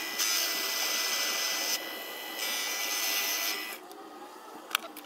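Proxxon mini lathe turning a rebar steel shaft: a high hissing cutting noise over a steady thin motor whine. The cut eases for a moment about two seconds in and stops near four seconds, followed by a few light clicks.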